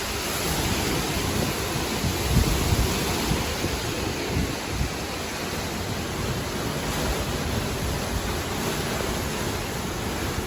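Hurricane wind blowing as a steady rush, buffeting the microphone with uneven low rumbles.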